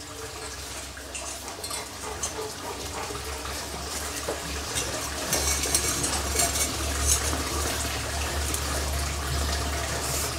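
Water pouring and splashing steadily into water, growing louder about four seconds in, over a low steady hum.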